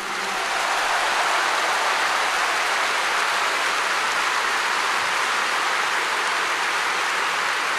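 Large stadium crowd applauding and cheering, a dense steady roar of clapping that swells up within the first second and then holds level.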